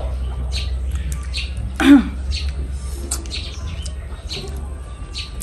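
Small birds chirping over and over over a low steady hum, and about two seconds in one loud, short squawk that drops sharply in pitch.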